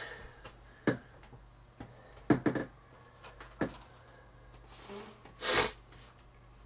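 Handling noise on a handheld camcorder: a few sharp clicks, two of them close together about two and a half seconds in. About five and a half seconds in comes a short hissing rush, the loudest sound, all over a low steady hum.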